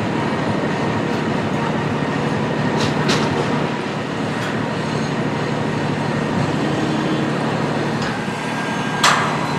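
Construction-site machinery running with a steady low rumble and hum, with a sharp knock about three seconds in and louder hammer-like strikes starting near the end.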